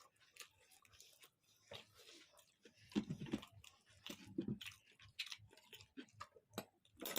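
Close-up chewing of noodles, pasta and paratha, with many small wet mouth clicks and smacks. A couple of brief low muffled sounds come about three and four and a half seconds in.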